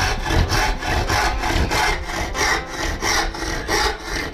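Handsaw cutting by hand through a coigüe board along a traced line, in steady back-and-forth strokes at about two or three a second, cutting a stave for a conga (tumbadora) drum shell.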